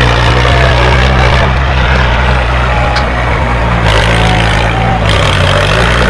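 Diesel farm tractor engines running flat out under full load as two tractors pull against each other, a loud steady low drone.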